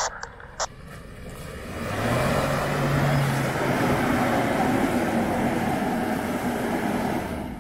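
Kia Sorento 4x4 engine revving hard under load as the SUV claws its way up out of a muddy rut, tyres spinning and throwing mud. It swells about two seconds in, holds at full effort, then eases near the end.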